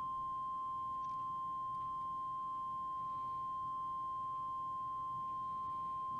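A steady single-pitched test tone, like a held whistle, heard while the ham transceiver is keyed up for a spectral purity test.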